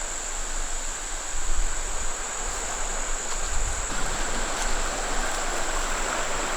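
Steady rushing of a woodland creek, an even wash of running water with no let-up.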